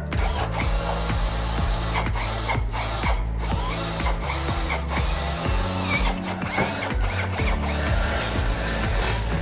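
Repeated mechanical clicks and clatter of hand-worked metal parts, over background music with a steady low bass.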